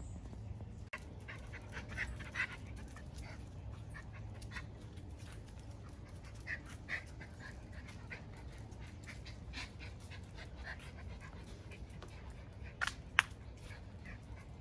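Miniature Schnauzer panting, with a few short sharp sounds in pairs about two, seven and thirteen seconds in; the last pair is the loudest.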